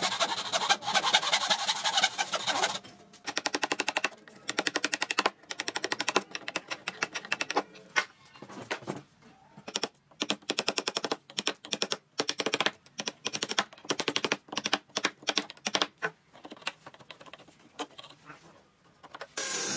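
Hand saw rasping through a pine post in quick strokes for the first few seconds, then a wood chisel chopping and paring out the waste between the saw cuts, heard as rapid bursts of sharp clicks and knocks with short pauses between them.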